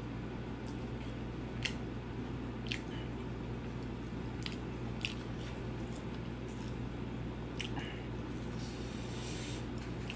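Eating rice and pork curry by hand: soft squishing as fingers squeeze and mix the rice, with a few short sharp clicks from chewing and handling the food, over a steady low hum. A brief hiss comes near the end.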